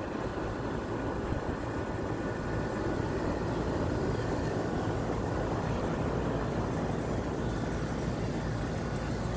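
Steady low rumble of background noise, even in level throughout.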